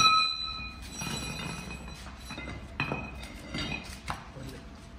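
A sharp metal clank that rings on briefly, then a second, lighter ringing clink about three seconds in, with smaller knocks between: steel tools and parts being handled during work on a tractor's wheels.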